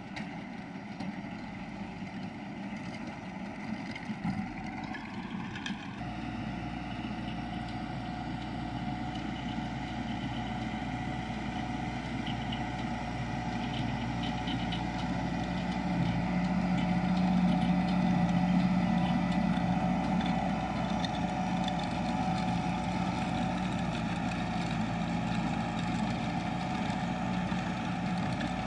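Landini 4-070 tractor's diesel engine running steadily under load as it pulls a manure spreader, growing louder as the tractor comes closer, loudest about two-thirds of the way through.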